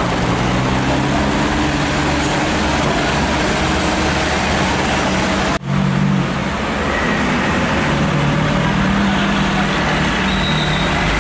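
Vehicles passing slowly at close range: a diesel truck engine runs with a low, steady drone among car and minibus engines and road noise. The sound drops out for a moment about halfway through, then carries on.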